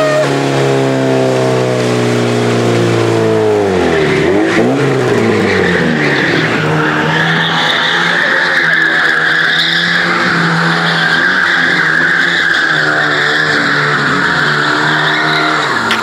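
Classic Lada saloon's engine held at high revs with its rear tyres spinning in a burnout, then drifting. The engine note drops about four seconds in, then rises and falls repeatedly as the tyres squeal continuously.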